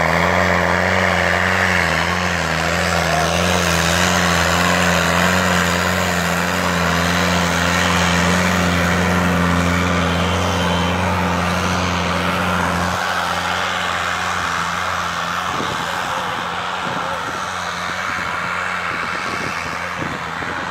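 Tractor diesel engine running hard under full load in a tug-of-war pull, a deep steady drone that wavers slightly at first. It cuts off abruptly about thirteen seconds in, leaving only a fainter, noisier background.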